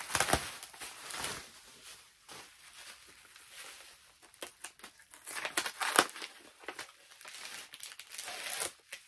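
Packaging wrap crinkling and rustling as a package is unwrapped by hand, in irregular bursts, loudest about a third of a second in and again near six seconds.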